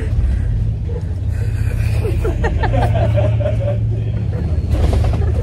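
Steady low engine drone of a boat, heard inside its cabin, with women laughing about two to four seconds in.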